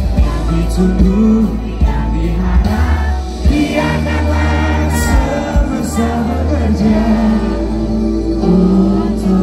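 A pop band playing live, with electric guitars, bass, keyboard and drums under a sung melody, heard from within the audience.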